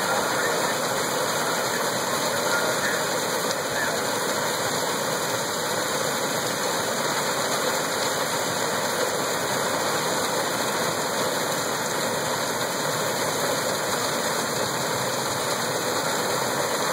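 Belt-driven grain threshing machine, powered by a steam engine, running steadily under load as bundles are fed in, a continuous rushing noise from the separator and the straw blowing out of its blower pipe.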